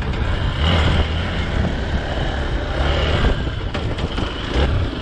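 Motorcycle engine running while being ridden, its low note swelling and easing off every second or two as the throttle opens and closes, over a steady rushing noise.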